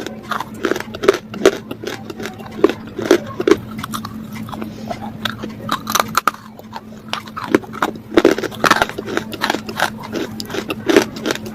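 Close-up mouth crunching: a person biting and chewing something hard and crumbly, likely edible clay or chalk, in many sharp, irregular crunches, over a steady low hum.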